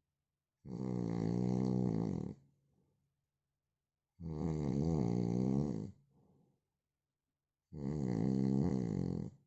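A man snoring loudly: three long snores, each lasting nearly two seconds, about three and a half seconds apart with silence between.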